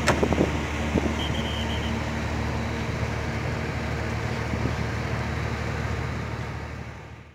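Steady outdoor background noise with a low hum, fading out near the end.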